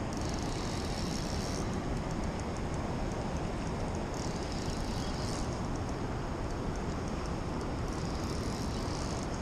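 Steady rumble of wind and river water, with a fishing reel whirring in three spells of about a second each, as a big walleye is played on the line.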